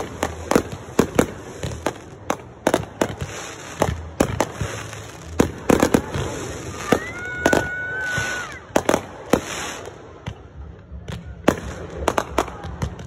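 Fireworks going off: a rapid, irregular string of sharp bangs and crackles, about two or three a second. Around the middle a high whistle rises and then holds for about a second and a half.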